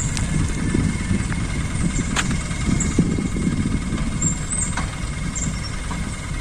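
Dump truck engine running steadily at low revs, with a sharp click about two seconds in.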